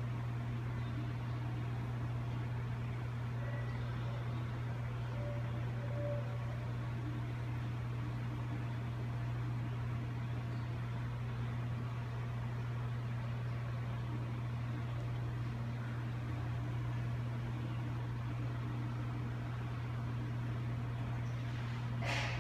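Steady low mechanical hum with a faint hiss under it, unchanging throughout, and a brief noise near the end.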